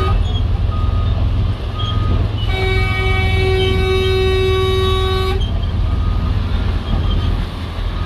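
Low, steady rumble of heavy construction machinery engines, with a vehicle horn that cuts off just as the clip begins and sounds again, held for about three seconds, in the middle.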